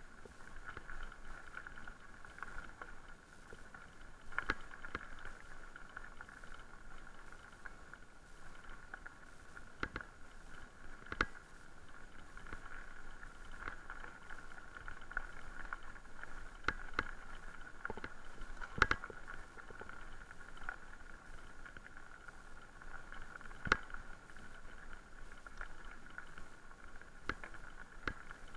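Haibike Sduro FullSeven LT electric mountain bike rolling along a gravel track: a steady hum with tyre noise, and now and then a sharp knock or rattle as the bike jolts over stones.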